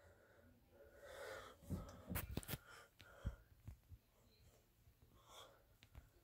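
Quiet room with soft breaths and a few faint knocks and rubs from a phone being handled, clustered in the first half.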